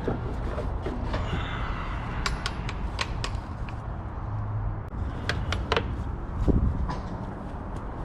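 Plastic clips on an engine air filter housing being unsnapped and the cover handled: sharp plastic clicks and knocks in two clusters, over a steady low hum.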